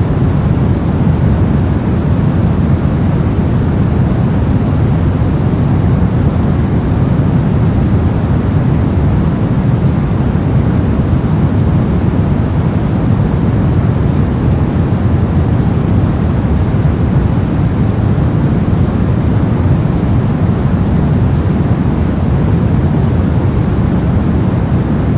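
Steady brown noise: an even, deep rumbling hiss with most of its energy in the low end, unchanging throughout.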